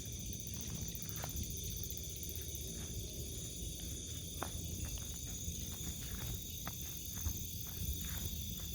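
Crickets and other night insects chirring steadily at several high pitches, over footsteps and rustling in tall grass with scattered sharp clicks.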